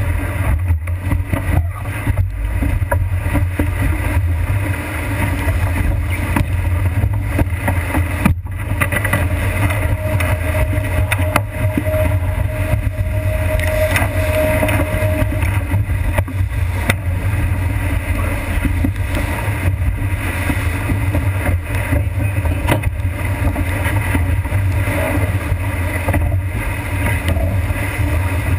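Strong wind buffeting the microphone as a sailboat drives hard through waves, with the rush and splash of water and spray along the heeled hull. A steady low rumble runs throughout.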